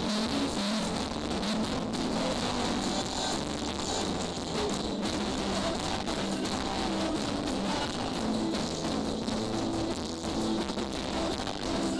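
Live band music with trombones and keyboard, played through stage loudspeakers and heard from beside the stage as a steady, dense mix.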